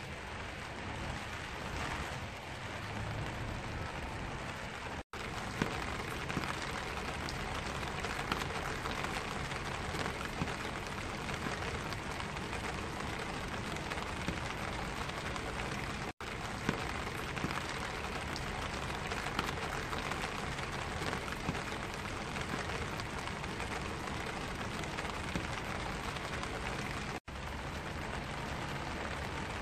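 Rain falling on a black vinyl umbrella: a dense, steady spatter of many small drop ticks on the canopy. It cuts out for an instant three times, evenly spaced.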